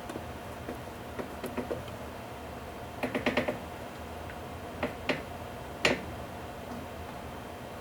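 A few short knocks and clicks over a steady background hum: a quick cluster about three seconds in, two more around five seconds, and a sharper single knock just before six seconds.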